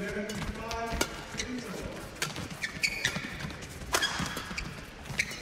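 Badminton doubles rally: sharp racket-on-shuttlecock hits about once a second, with brief squeaks of court shoes on the floor in the middle.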